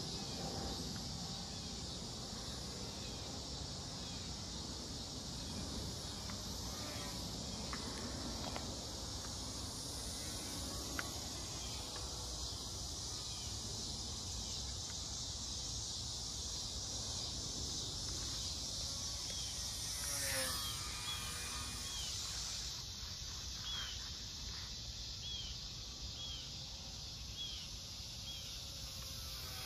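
Outdoor ambience: a steady high insect drone over a low wind rumble, with a bird giving short chirps about once a second in the second half.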